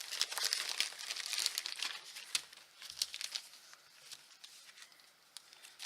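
Packaging being torn open and crinkled by hand as a mail parcel is unwrapped: dense crackling for the first couple of seconds, then scattered crinkles and small clicks, growing quieter.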